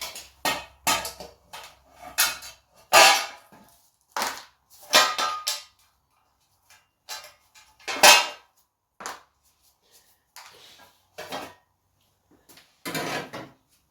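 Metal tools and small metal parts clinking and clattering in irregular knocks, the loudest about three, five and eight seconds in.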